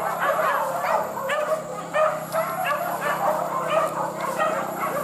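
A pack of hunting dogs barking and yelping over one another without a break, baying at a wild boar that has turned to fight them.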